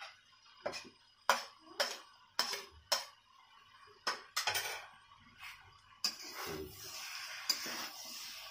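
Metal spoon and spatula clinking against a steel kadai and plate as chopped tomatoes are tipped in, a sharp clink about every half second for the first few seconds. From about six seconds in, a steadier scraping as the chicken and tomatoes are stirred in the pan.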